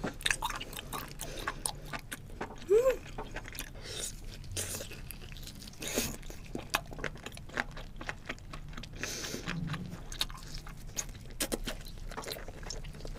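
Close-miked mouth sounds of a person chewing cooked octopus: irregular wet smacks and clicks of the chewing, with a short rising-and-falling hum about three seconds in.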